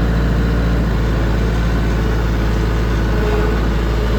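Tractor engine running steadily at working RPM while pulling a no-till drill, a low, even drone.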